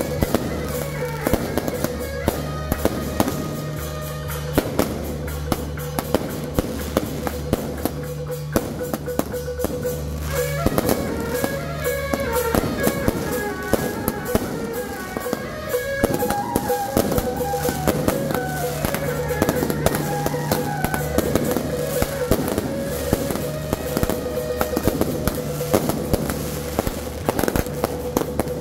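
Ground-launched fireworks cakes firing: a dense, continuous string of launch pops, bangs and crackling bursts. Music plays under it, with a melody most clearly heard through the middle of the stretch.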